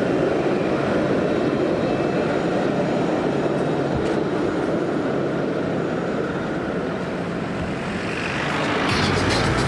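Steady low rumble of road and traffic noise from a moving vehicle, growing louder near the end.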